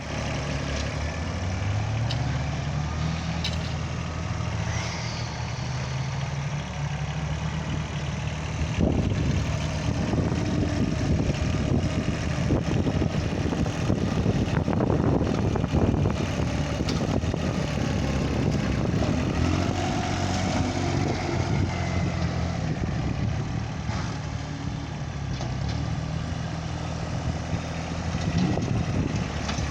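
Heavy equipment engine running under working load, its pitch rising and falling as it revs. It gets louder and rougher from about nine to sixteen seconds in.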